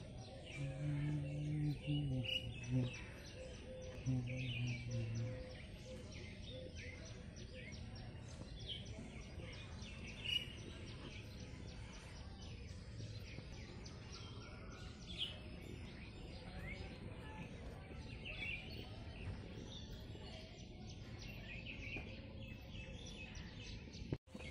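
Outdoor background noise with small birds chirping and calling on and off throughout. Twice in the first five seconds a low steady hum sounds for about a second and a half each time.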